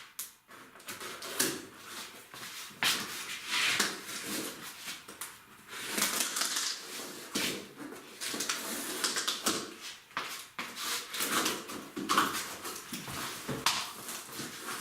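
Cardboard carton being opened and handled: irregular scraping, rustling and short knocks of cardboard flaps and packing.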